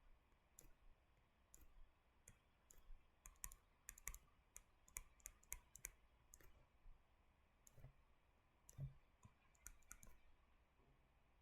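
Near silence broken by faint, irregular clicks and taps from drawing on a computer.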